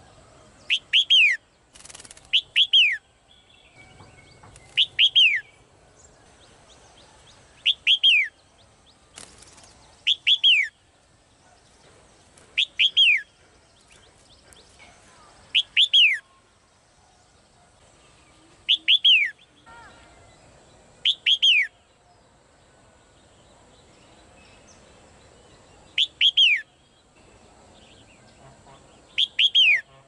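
Female red-whiskered bulbul calling: short, clear whistled notes that sweep downward, given in quick pairs or threes. The group repeats about every two and a half to three seconds, eleven times in all.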